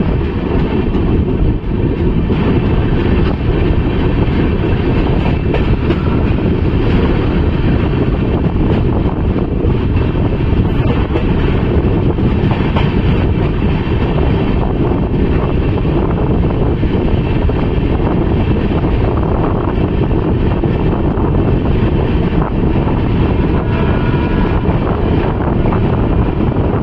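Steady, deep rumble of a passenger train running at speed, heard from aboard, with wind rushing over the microphone.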